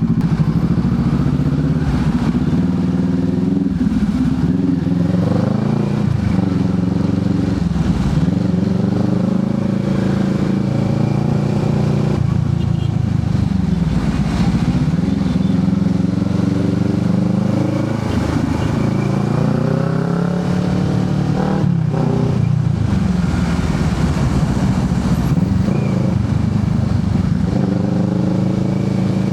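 Motorcycle engine running while riding, its pitch rising and falling again and again as the bike speeds up and slows down.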